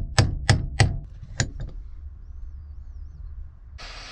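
Hammer striking a hammer-type lug crimper about five times in quick succession, crimping a copper lug onto a battery cable. Near the end a butane torch is lit and runs with a steady hiss.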